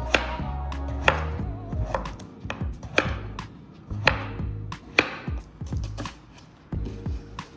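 Chef's knife chopping on a cutting board: sharp knocks roughly once a second, first slicing through a king oyster mushroom stem and, near the end, green onions.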